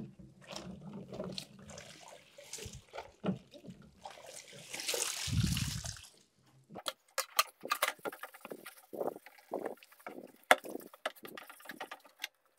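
Plastic computer case parts being washed by hand in a sink of soapy water: water sloshing and splashing, loudest about five seconds in, then a run of short sponge-scrubbing scrapes and light knocks of plastic.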